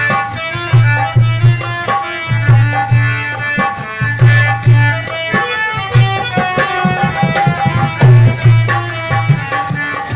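Instrumental introduction to a devotional song. A harmonium plays a melody in held notes, while a hand drum keeps a rhythm of deep bass strokes and sharper higher strokes.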